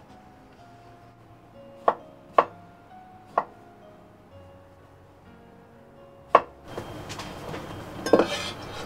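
Kitchen knife chopping a boiled carrot on a wooden cutting board: four sharp chops, three between about two and three and a half seconds in and a fourth past six seconds. After that a noisy rustle rises, with a louder clatter about eight seconds in.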